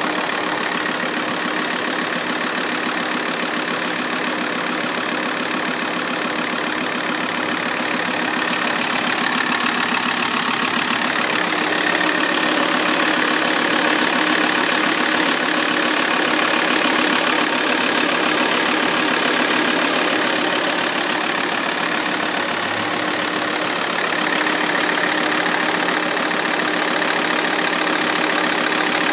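Alfa Romeo 159 2.4 JTDm five-cylinder diesel engine idling steadily after a cold start, with a squeaking noise that comes on at cold start and dies away after about a minute.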